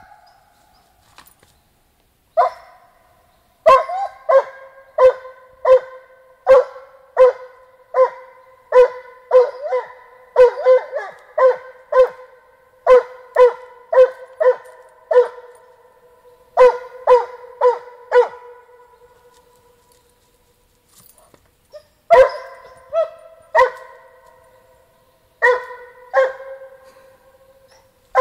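Russian hound barking in a steady run of sharp, ringing barks, about three every two seconds, with a gap of a few seconds two-thirds of the way in. It is excited by a scent it has picked up.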